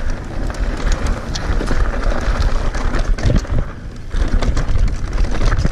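Mountain bike rolling fast down a rough dirt-and-stone trail: tyres crunching over the ground and the bike clattering over bumps, with wind buffeting the microphone.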